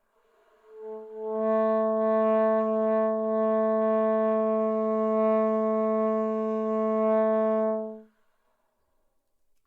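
Saxophone played by a beginner, sounding one long held note of about seven seconds. It starts with a breathy attack and briefly wavers before settling, then holds steady and stops abruptly.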